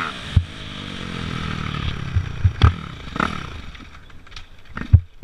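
Dirt bike engine coming off the throttle, its note falling away as the bike coasts, with a series of sharp knocks and clatters as it rolls over rough ground. The loudest knock comes near the end.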